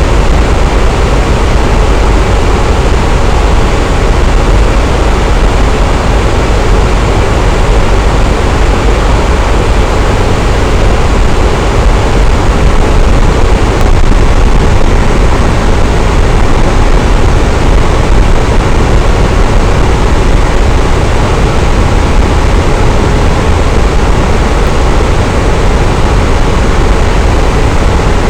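Electric fan running at a steady speed: a loud, even rush of air noise with most of its weight in the low end, unchanging throughout.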